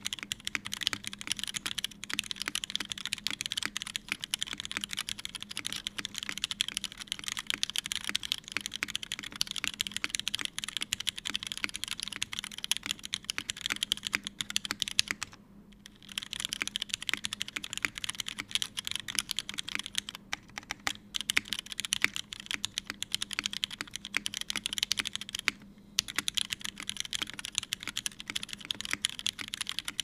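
Steady, fast typing on a TGR910ce mechanical keyboard with a brass plate, lubed and filmed Cherry Vintage Black linear switches and GMK keycaps: a dense run of key clacks, with two short pauses, one about halfway through and one past three quarters.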